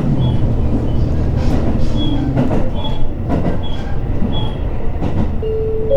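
Running noise inside an H100 diesel-electric railcar: a steady low rumble from the wheels and running gear, with irregular knocks from the track and brief faint squeals. Near the end, a chime of steady tones begins.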